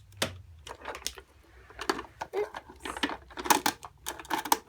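Plastic dolls and toys being handled, a run of light clicks and taps.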